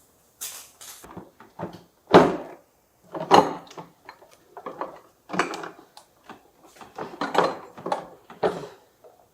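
A run of short knocks, clatters and rustles from household things being handled, like doors or drawers being moved.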